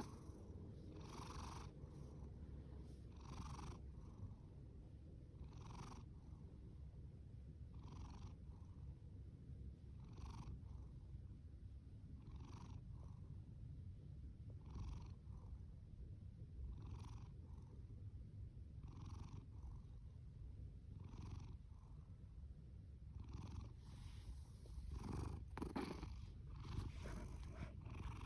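Domestic cat purring steadily, with a soft snoring breath about every two seconds.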